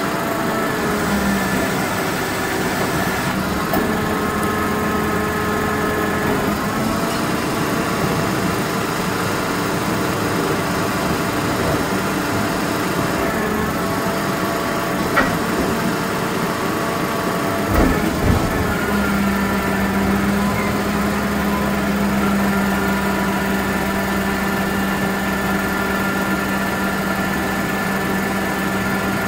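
Rear-loader garbage compactor truck's diesel engine running steadily at idle, a steady drone with higher steady whining tones over it. A few sharp knocks near the middle.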